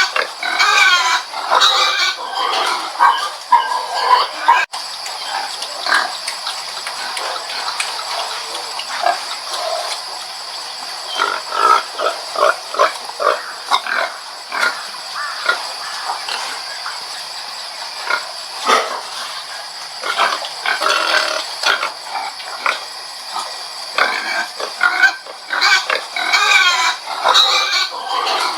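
Pig calls: many short calls in quick succession, busiest near the start and the end, with a brief dropout about five seconds in.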